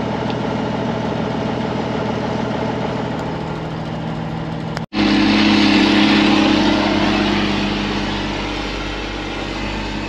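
Truck engine running steadily, heard from inside the cab. About five seconds in, a sudden cut to louder machinery: a tractor engine and a John Deere self-propelled forage harvester chopping corn and blowing it into a truck, a steady hum with a rushing noise over it.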